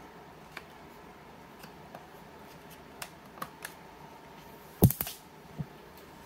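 Plastic scratch-guard film being peeled off a portable tire inflator: scattered faint clicks and scratches, with a sharper pair of snaps a little under five seconds in.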